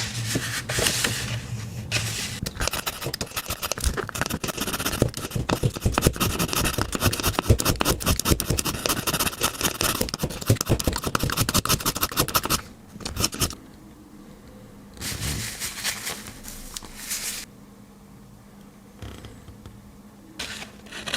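Swiss Army knife blade scraping in rapid strokes, as when drawn back and forth through a carbide and ceramic V sharpener. The strokes come thick and fast for about twelve seconds, then give way to a few short scrapes with pauses between them.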